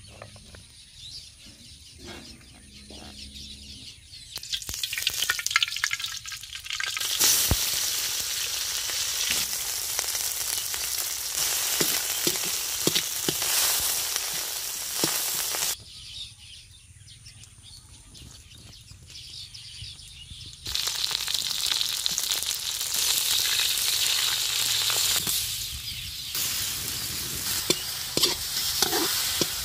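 Sliced onions, chillies and curry leaves sizzling in hot oil in a large pan, then chunks of liver frying, with a spatula stirring and scraping. The sizzle comes in two long loud stretches with a quieter pause between, and spatula clicks against the pan near the end.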